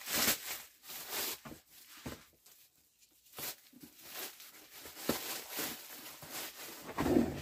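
A golf stand bag being handled and shifted about, giving scattered rustles and light knocks.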